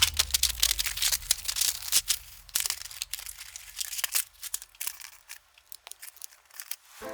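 Keyboard parts handled during assembly: an irregular run of small, sharp plastic clicks and snaps, with some rustling.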